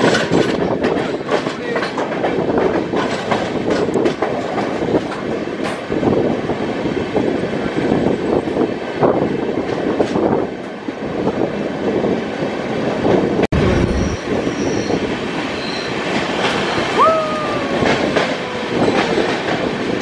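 Passenger express train running, heard from an open coach doorway: steady wheel-on-rail rumble and clickety-clack. Near the end a brief high squeal sets in and slides slightly down in pitch.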